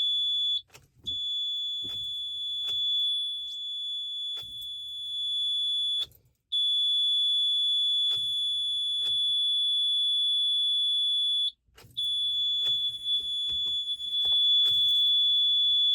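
A 2012 Toyota Camry's electronic warning buzzer gives one steady, high-pitched tone in long stretches of about five seconds, broken by short gaps. It sounds when the key is turned and the car will not start. Faint clicks are scattered underneath.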